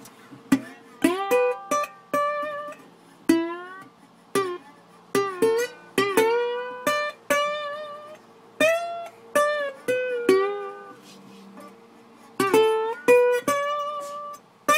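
Solo guitar playing a slow, sparse blues line of single plucked notes, many of them bent up in pitch, in short phrases with brief pauses between.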